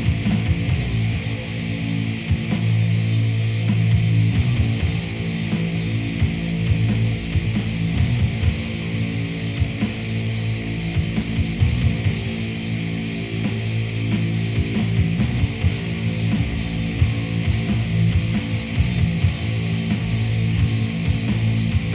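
Background rock music with distorted guitars and a steady beat.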